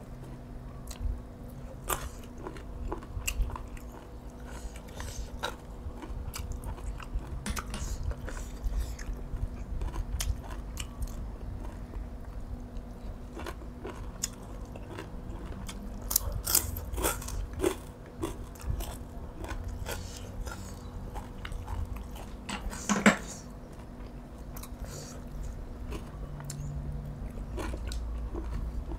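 A person chewing and biting boiled field snails and spicy long-bean salad, with scattered small clicks and crunches throughout. One sharp click about 23 seconds in is the loudest sound.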